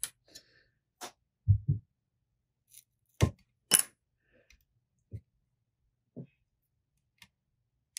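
Sparse hand-handling sounds as fingers work at the edge of the tape wrapped over the rod: two soft low thumps about one and a half seconds in, two sharp clicks around three seconds in, then a few faint ticks.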